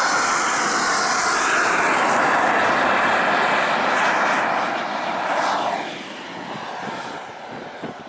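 A radio-controlled model jet's engine at full power on its takeoff run: a loud, steady rushing jet noise with a faint high whine. About five and a half seconds in, its pitch drops and it fades as the jet climbs away.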